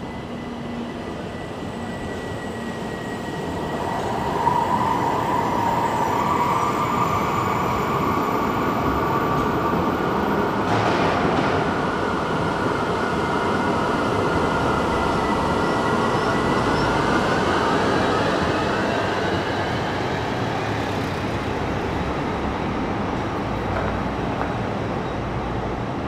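Electric tram passing close by: wheels rumbling on the rails with an electric drive whine, the sound swelling about four seconds in as it arrives. In the second half the whine rises in pitch as it pulls away.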